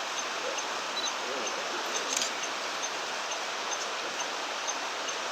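Steady rushing of a river, with a brief sharp click about two seconds in.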